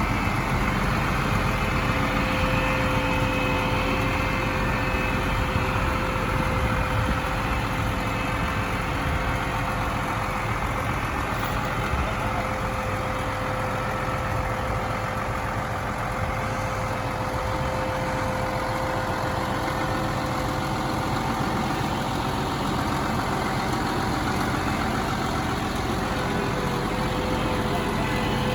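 Tow truck's engine idling steadily, with a steady whine running over the engine noise.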